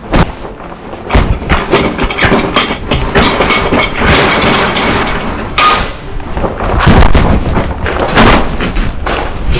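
A dense run of foley knocks, thuds and crunching noise, loud and irregular, with a sharper crack about five and a half seconds in.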